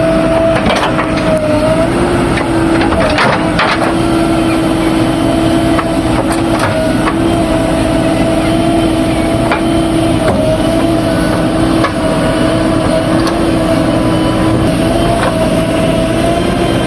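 JCB 3DX backhoe loader running steadily at working revs with a steady whine, with scattered knocks and clatter from loading mud, heaviest in the first few seconds.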